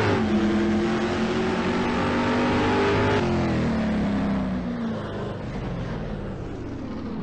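Car engine sound effect that starts suddenly at high revs. Its pitch falls slowly as it winds down, and it grows quieter after about three seconds.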